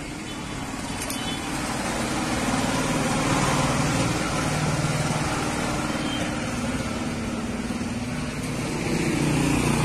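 A motor vehicle's engine running steadily, swelling a little in the first few seconds and again near the end.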